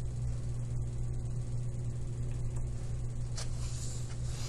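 Steady low electrical hum with faint hiss from the recording, with a faint click about three and a half seconds in.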